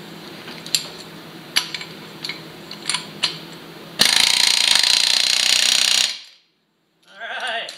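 Pneumatic air hammer driving a wheel lug stud through a front hub flange, in one loud rapid-fire burst of about two seconds that cuts off suddenly. Before it there are a few sharp metal taps.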